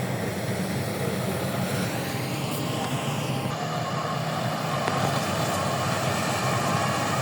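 Rice combine harvester's engine running steadily under work.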